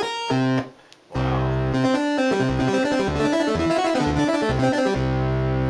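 Roland Juno-106 synthesizer with a Kiwi-106 upgrade being played live through a preset patch: a keyboard riff of notes and chords over a moving low bass line, with a brief break about a second in.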